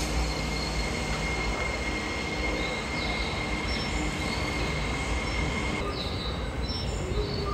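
Oedo Line subway train running through the underground station: a steady rumble with a thin, high wheel squeal that stops about six seconds in.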